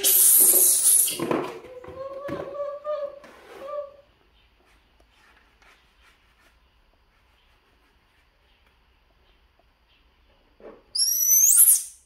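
Baby macaques calling: a shrill, high-pitched squeal at the start, softer gliding calls over the next few seconds, then a pause and another loud, high squeal with a wavering pitch near the end.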